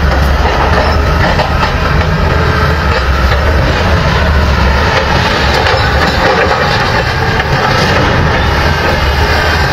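Excavator's diesel engine running steadily at a demolition, a loud low rumble under constant noise.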